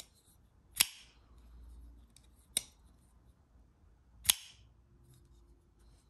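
Reate Matt Diskin IDF titanium folding knife's blade being flipped open, three sharp metallic snaps about a second and three-quarters apart as the blade swings out and locks.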